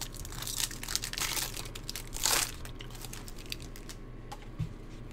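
Crinkling and rustling of a trading-card pack's wrapper and cards being handled, with a longer rustle about two seconds in, then quieter handling.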